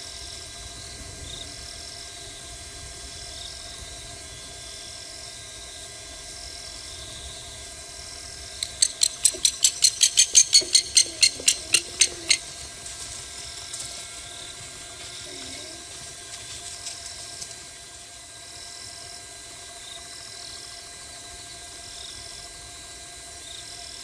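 Night-time bush sounds: steady insect-like trilling and faint repeated chirps. About nine seconds in, a loud rapid series of about seventeen sharp clicking notes, roughly five a second, swells and fades within four seconds.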